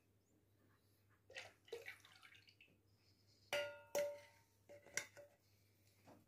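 Soft scraping in a bowl, then two sharp clinks of a utensil against the bowl about three and a half and four seconds in, each ringing briefly, followed by a few lighter clinks.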